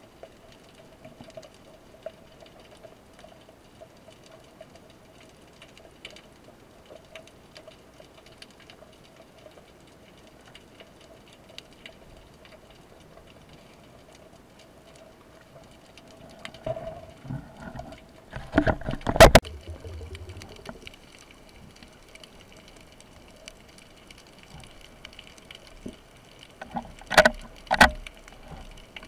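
Underwater sound picked up by a camera on a speargun: a faint steady hum with light crackling ticks. A few loud knocks come about two-thirds of the way through and again near the end.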